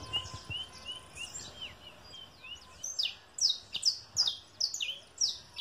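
Saffron finches (canário-da-terra) calling: soft, short rising chirps at first, then from about halfway a run of louder, sharp downward-sliding chirps, roughly two a second.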